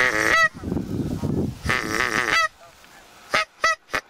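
Geese honking in flight: two longer honks, then a quick run of short honks near the end.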